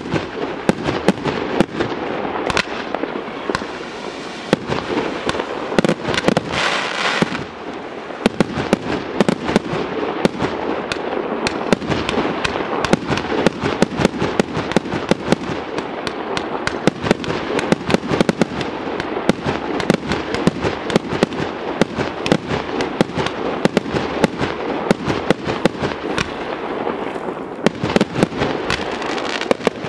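A fireworks display in a dense barrage: aerial shells bursting several times a second with sharp reports over continuous crackle, with a hissing stretch about six seconds in.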